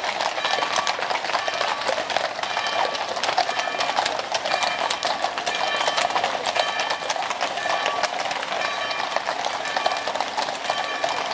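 Many shod horses walking in a column over brick paving: a dense, steady clatter of hoofbeats.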